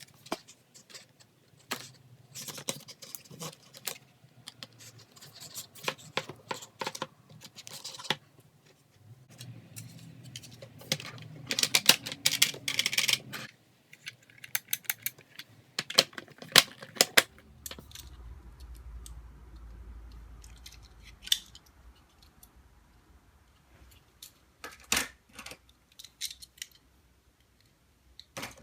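Plastic toy racetrack pieces being handled: a string of sharp clicks, taps and rattles, with a denser stretch of clattering and rustling about ten to thirteen seconds in.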